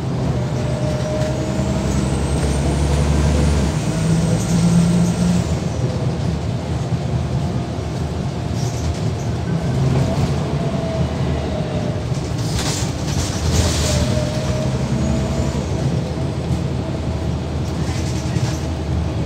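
Scania L94UB single-deck bus under way, its diesel engine running steadily with its pitch rising and falling as it drives. A faint high whine rises and falls over a few seconds near the start, and there are two short hisses about two-thirds of the way through.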